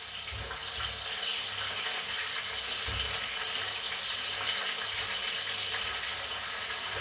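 Food sizzling as it fries in oil in a pan: a steady hiss.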